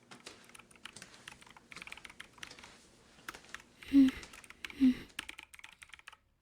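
Computer keyboard typing, a run of quick irregular key clicks, with two short hums from a woman's voice about four seconds in.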